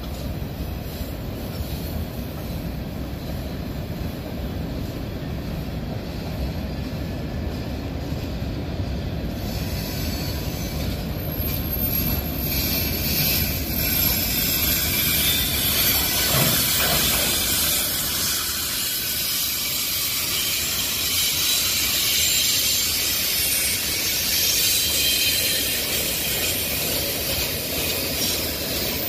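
Freight train of tank cars and boxcars rolling past with a steady low rumble; from about ten seconds in, a high-pitched wheel squeal joins and the sound grows louder, holding on to the end.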